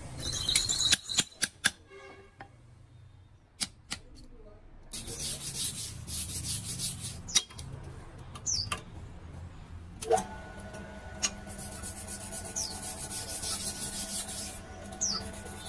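A few sharp hammer taps on metal in the first seconds, then a stretch of rasping, rubbing noise. About ten seconds in, a bench drill press motor switches on and runs with a steady hum.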